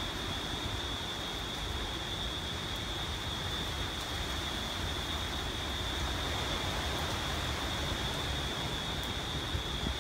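Hurricane-force wind rushing steadily through trees, with a low rumble of the wind buffeting the microphone and a steady high-pitched tone underneath.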